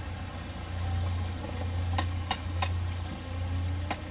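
Canal lock filling: water rushing in through the gate paddles, over a narrowboat engine idling with a steady low rumble. About two seconds in, three sharp clicks come about a third of a second apart.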